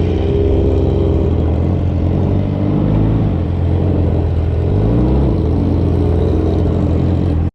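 Motorcycle engine running while riding, its pitch falling and rising again around the middle as the speed changes. It cuts off suddenly at the end.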